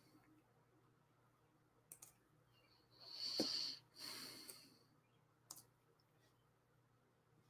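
Faint single computer mouse clicks a few seconds apart, heard while the screen share is being switched. In the middle comes the loudest sound: two short puffs of hissing noise with a soft knock, lasting about a second and a half.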